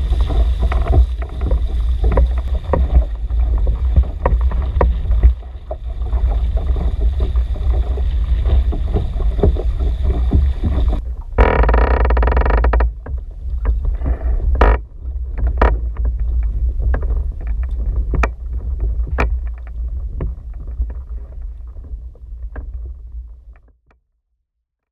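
Outrigger sailing canoe moving fast through chop: wind rumbling on the camera microphone and water rushing and splashing along the hull, with frequent knocks. About halfway through it gives way to quieter lapping water with sharp separate clicks and knocks, fading out near the end.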